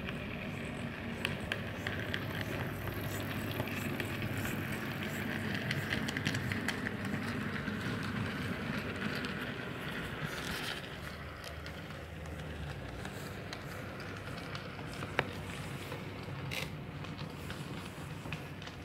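HO-scale model steam locomotive running past on the layout track: a steady whirring rumble of its motor and wheels on the rails. It swells over the first ten seconds or so, then fades as the engine moves away. One sharp click about fifteen seconds in.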